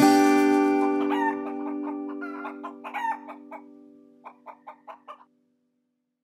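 A chicken clucking in short calls over a fading music chord: one rising call about a second in, a scatter of calls after that, then a run of five quick clucks before the sound dies away.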